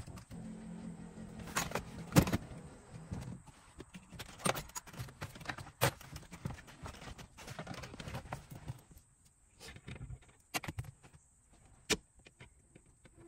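Scattered sharp clicks, knocks and light rattles of hand work on a car body, loudest about two seconds in and again near six seconds, with a low hum for the first few seconds.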